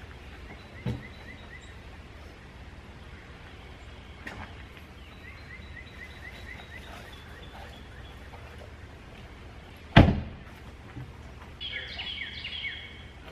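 Birds chirping in woodland over steady outdoor background noise, with a couple of light knocks from a Jeep Wrangler's body and one sharp, loud slam of a Jeep door about ten seconds in.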